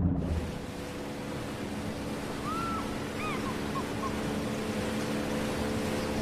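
Small motorboat's outboard engine giving a steady distant drone over a steady hiss of water and wind. A bird chirps a few times in the middle.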